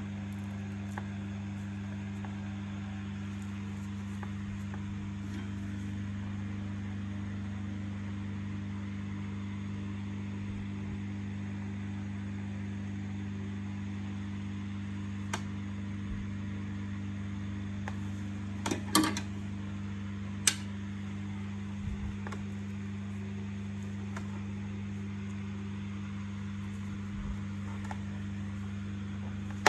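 Steady low electrical hum, with a few short sharp clicks around the middle.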